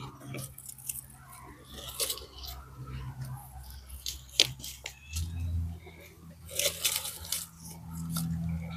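Scattered crunching and rustling of dry fallen leaves and plant stems. A low steady hum comes in about five seconds in.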